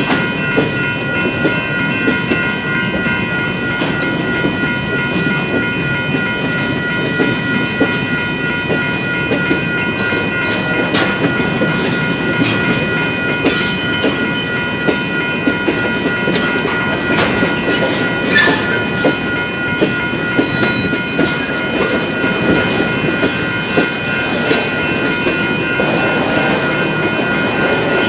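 BNSF freight train rolling through a grade crossing, its wheels rumbling and clacking over the rail joints. Over it, the crossing's warning bells keep up a steady high ringing.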